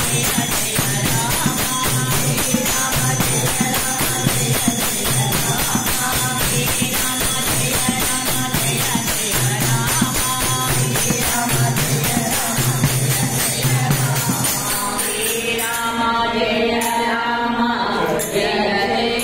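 Women's voices singing a devotional bhajan chanting Rama's name, to a tambourine shaken and struck in a steady rhythm and small hand cymbals clinking on the beat. About fifteen seconds in, the tambourine and cymbals stop and the chanting voices carry on almost alone.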